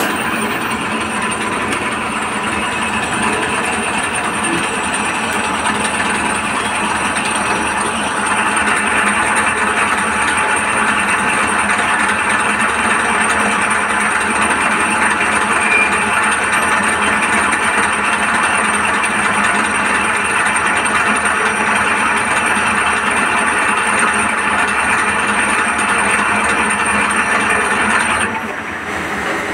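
CNC lathe running through a machining cycle: a steady, loud whirring of the spindle and cutting, which grows a little louder about eight seconds in and drops off shortly before the end as the cycle finishes.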